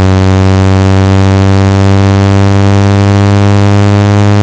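Steady low buzzing tone with many overtones, held at one pitch: a speaker-cleaning sound meant to shake dust and water out of a phone's speaker.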